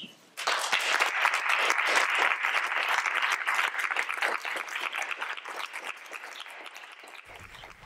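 Audience applauding, starting about half a second in, strongest for the first couple of seconds and then gradually dying away.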